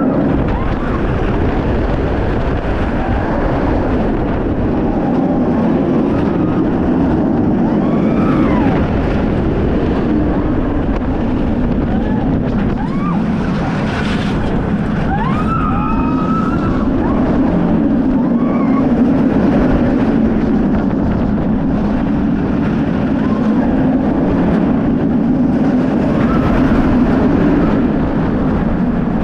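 Kumba, a Bolliger & Mabillard steel looping roller coaster, with the train running along its track in a steady loud rumble and wind on the microphone. Short rising-and-falling high cries come and go on top.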